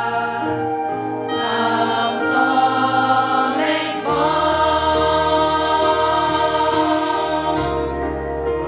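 Choir singing with an orchestra in a Christmas cantata: long held chords over a low bass line, the harmony changing about four seconds in and again near the end.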